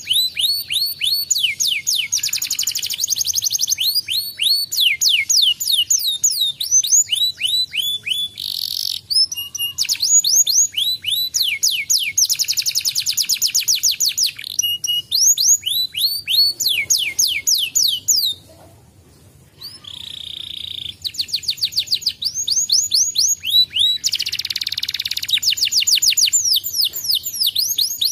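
Domestic canary singing a long, fast song: quick series of repeated descending chirps, broken several times by rapid rolling trills, with a short pause about two-thirds of the way through.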